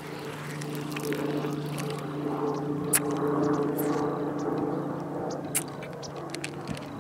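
A man's muffled humming and groaning through closed lips as he holds a mouthful of foaming Mentos and cola in, with a few sharp clicks.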